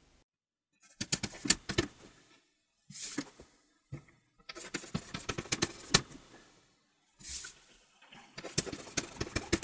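Chalk on a blackboard: bursts of sharp taps and high, scratchy strokes in about five groups, with short silences between them.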